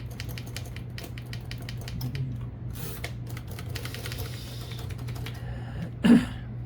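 Royal Keystone portable typewriter being typed on: a quick run of key strikes, then a longer rasping, sliding noise from the machine, with one short louder sound near the end.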